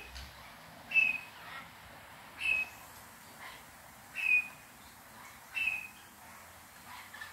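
White-fronted amazon parrot giving a string of short, slightly falling calls, about one every second and a half, during mating.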